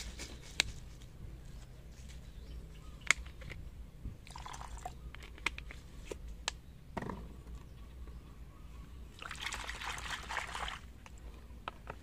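Soapy water sloshing and dribbling in a plastic basin as diluted onion-and-detergent ant solution is mixed, with light clicks from a plastic bottle being handled. Two short spells of swishing water, about four seconds in and again near ten seconds.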